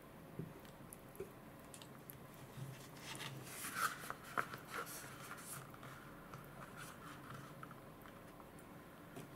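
Soft handling noises of a paper cup-noodle container: its foil-lined paper lid crinkling and tapping as it is pressed shut, a short cluster of small clicks and rustles about four seconds in, with a few faint ticks before and after.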